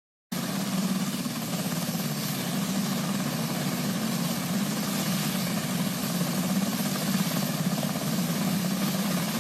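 UH-60 Black Hawk helicopter hovering: steady rotor and twin-turbine noise that cuts in suddenly just after the start and holds level throughout.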